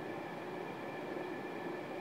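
Sewing machine running steadily, stitching a seam through fabric.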